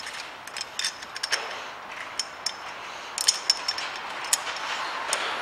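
Light metallic clicks and clinks, a dozen or so scattered through, as a bolt is worked through an old steel exhaust clamp welded to a bearing, over a steady hiss of background noise.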